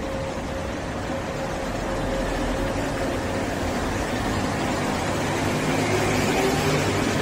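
Mexico City Metro Line 8 rubber-tyred train starting to pull out of the station: a steady hum and rumble that grows louder from about two seconds in, with the motor whine rising in pitch near the end.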